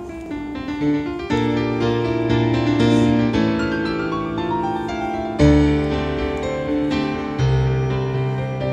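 Instrumental background music, a keyboard melody over held chords, with a bass line coming in about a second and a half in and growing stronger about five and a half seconds in.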